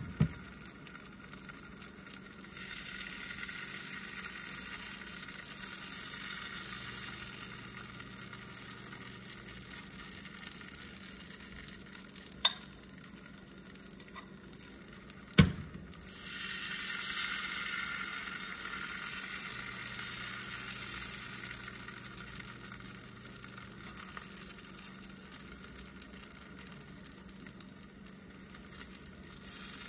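Green onion pancake batter sizzling in oil in a nonstick frying pan, the sizzle swelling a few seconds in and again about halfway through. A few sharp clicks break in, the loudest just past halfway.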